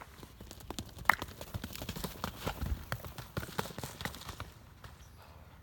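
Horse's hooves clip-clopping: a quick run of hoof strikes that starts about a second in and fades out near the end.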